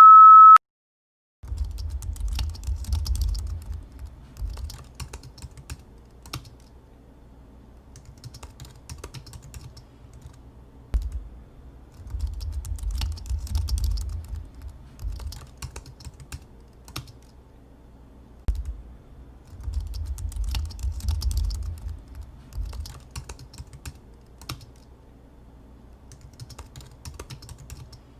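A short, loud beep, then computer keyboard typing in several bursts of clicking with pauses between, a low rumble under the busiest bursts.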